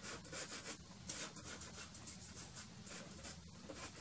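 Soft pastel stick scratching across black pastel paper in short back-and-forth strokes: a faint, dry hiss, about three strokes a second.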